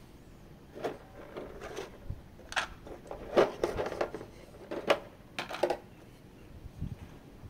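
Hands handling the figure's packaging and parts: irregular clicks, light knocks and short rustles, starting about a second in and mostly stopping around six seconds in.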